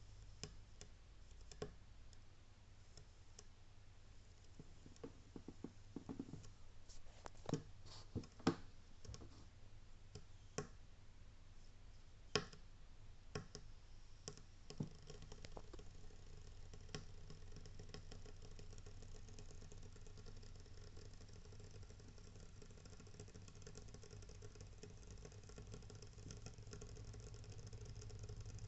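Koln 80-litre electric water heater crackling and clicking irregularly from its lower section while heating, over a steady low hum that grows a little louder toward the end. It is a fault noise that the owner likens to something frying in a pan, as if liquid were hitting a red-hot surface inside.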